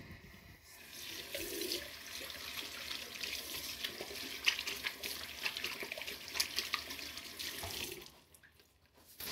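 Water running from a tap and splashing for about seven seconds, starting about a second in and shutting off suddenly, followed by a short knock near the end.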